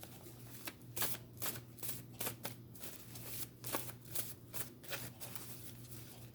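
Deck of tarot or oracle cards being shuffled by hand: an irregular run of quick soft card slaps and rustles, over a faint steady low hum.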